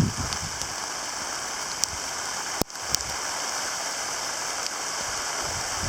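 Steady hiss of a heavy shower of rain mixed with small ice pellets coming down, with a few sharp ticks. The sound cuts out for an instant about two and a half seconds in.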